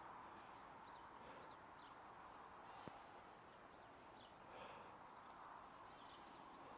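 Near silence: a faint outdoor background with a few faint, short bird chirps scattered through it.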